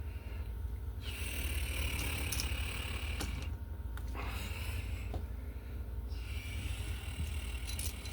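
Handling noise from hand work on a wall outlet's wiring: a steady low rumble with scraping and a few light clicks.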